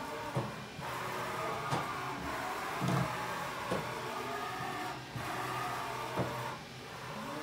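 Axis servo drives of a Haas VF-4SS CNC vertical mill whining as the table traverses, the pitch rising and falling as each move speeds up and slows down. A few sharp clicks are heard along the way.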